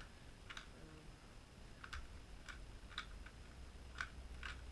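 Plastic 3x3 Rubik's Cube layers being turned by hand: a run of faint, sharp clicks at an uneven pace, about seven in all, as the cube's faces snap into place during an algorithm.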